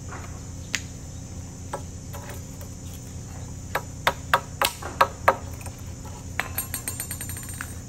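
Hammer striking a chisel against a concrete curb edge, chipping it down: single sharp strikes a second or so apart, then a run of about six louder blows at roughly three a second, and a quick series of lighter taps near the end.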